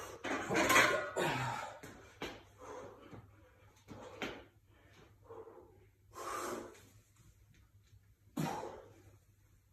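A weightlifter breathing hard through a set of barbell back squats, with sharp exhales about every two seconds as reps are pushed up. There is louder noise in the first second and a half as the loaded bar is taken out of the rack.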